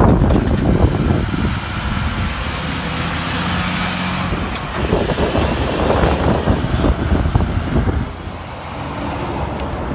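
Freightliner Argosy cab-over diesel tractor hauling a loaded car-carrier trailer drives past, engine rumbling under the rattle of the trailer and its load. A faint high whine rises and falls about three to four seconds in, and the sound drops off about eight seconds in as the rig pulls away.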